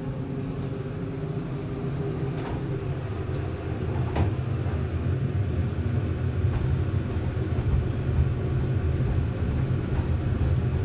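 Elevator car travelling in its shaft: a steady low hum and rumble that grows louder about four seconds in, with a single click around the same point.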